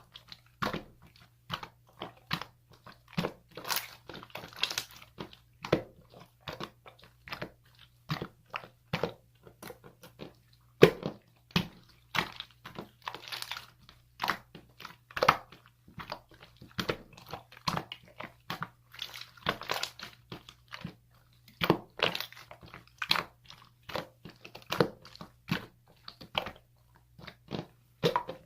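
Crunchy food being chewed close to the microphone: a long run of irregular crunches and bites, some much louder than others, over a faint steady low hum.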